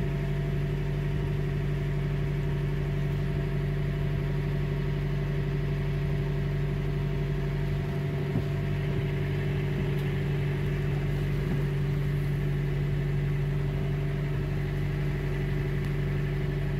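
A boat's new engine running steadily at low speed while it warms up: an even drone with a strong low hum that holds the same pitch throughout.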